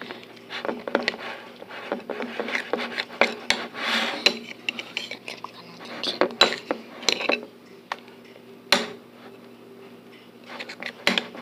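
A utensil stirring slime in a bowl, with repeated clinks and scrapes against the bowl. The stirring pauses for a couple of seconds near the end, then the clinking resumes.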